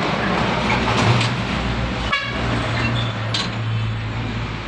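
An engine running steadily with a low hum, with a brief higher-pitched sound about two seconds in and a short click a little later.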